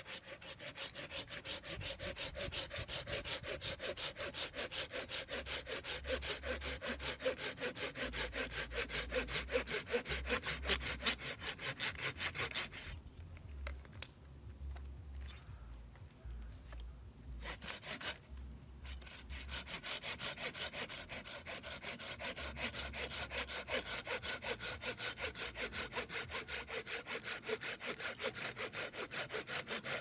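Hand saw cutting through wood with quick, even back-and-forth strokes. The sawing stops for about six seconds midway, then carries on.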